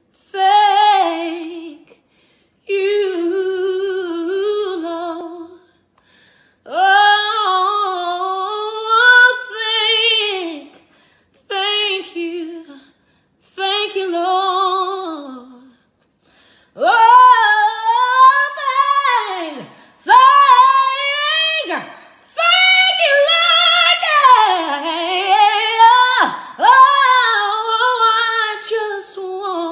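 A woman singing a gospel song unaccompanied, in long held phrases with heavy vibrato and short breaths between them. Her voice climbs higher and grows louder in the second half.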